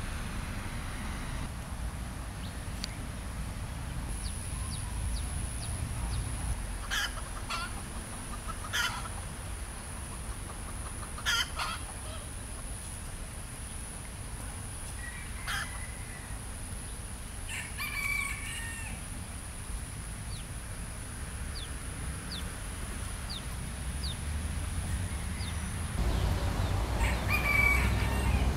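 Red junglefowl roosters crowing several times in short crows, over a steady high-pitched hum and a low background rumble.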